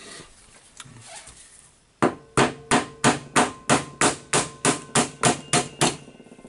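About a dozen hammer taps, evenly paced at roughly three a second, starting about two seconds in, each with a short metallic ring. They strike the Hilti TE1000-AVR demolition hammer's front tool-holder section and drive it off the hammer-mechanism cylinder.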